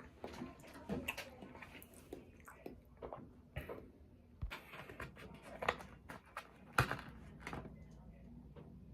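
A person chewing and biting food close to the microphone: irregular wet smacks and crunchy clicks, with a sharper bite a little before the end.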